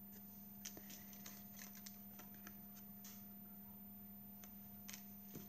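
Very faint light clicks and taps of cardstock die-cut cards being handled and flicked through, over a steady low hum.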